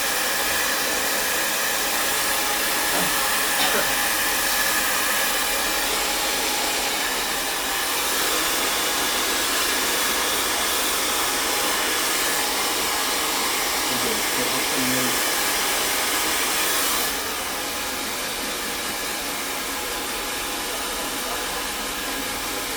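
Handheld hair dryer running steadily, a dense whoosh of blown air with a motor hum; it gets a little quieter about 17 seconds in.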